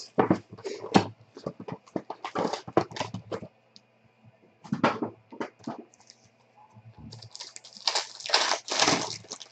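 Plastic shrink-wrap crinkling as a card box is unwrapped, then a foil trading-card pack crinkling and tearing open under the fingers, in irregular crisp bursts with a short lull around the middle.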